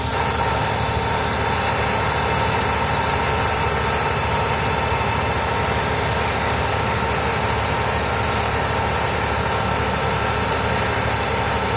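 Mobile crane's diesel engine running steadily while it holds and hoists a tower-crane jib section, a low rumble with a steady whining tone above it.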